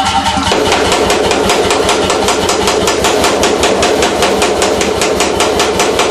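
C41 pneumatic forging hammer striking a red-hot steel bar through a top tool, in a rapid, even run of several blows a second that starts about half a second in. The hammer's motor and compressor run steadily underneath.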